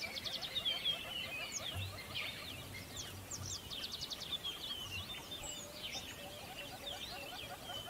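A dense chorus of many birds chirping and trilling together, with quick repeated notes and rapid trills overlapping throughout.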